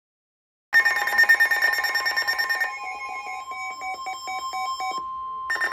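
Weather alert radio sounding its alarm ahead of a flood warning: a rapidly pulsing electronic beeping over a steady tone, starting under a second in. Near the end the pulsing drops out briefly, leaving the steady tone alone, then the beeping resumes.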